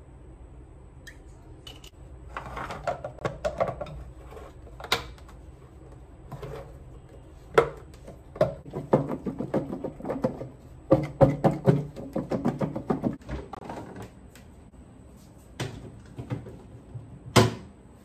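Clicks and knocks of a glass food-storage container being handled: its clip-lock plastic lid snapped on, then the container moved and shaken in quick runs of rattling knocks. Near the end a single loud click, a fridge door being opened.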